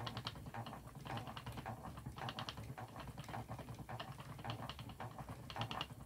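Wooden spinning wheel being treadled while merino is spun into a single: steady fast clicking from the wheel's moving parts, with a soft low knock about once a second from the treadle.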